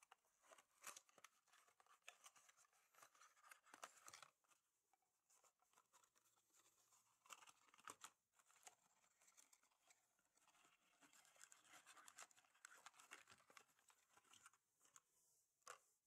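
Faint handling noise: rustling and scraping of a cardboard toy box and a small die-cast toy bulldozer moved about on a wooden tabletop, with light taps and one sharper click near the end.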